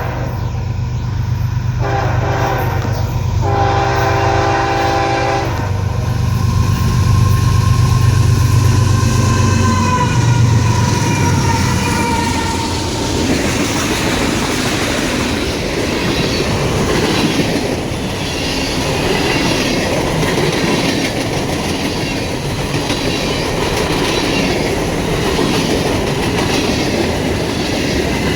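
Freight train locomotives sounding their horn in three blasts, the last the longest, then passing with a drop in engine pitch, followed by the long train of cars rolling by with rhythmic wheel clatter on the rails.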